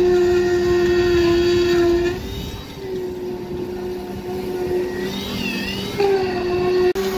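Engine-driven concreting machinery running steadily with a high whine over a lower hum. The level drops about two seconds in, then the whine rises in pitch and comes back up near six seconds, with a sharp click just before the end.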